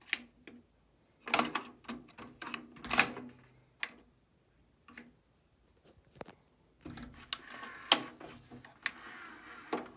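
Button presses and the tape transport mechanism of a JVC TD-W317 cassette deck clicking and clunking as it changes mode, in a series of sharp clicks. Near the end there is a short stretch of whirring.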